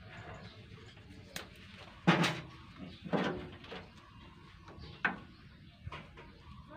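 A few scattered knocks and clicks, about six in all, the loudest about two seconds in: tools, wire and terminals being handled during wiring work on a vehicle.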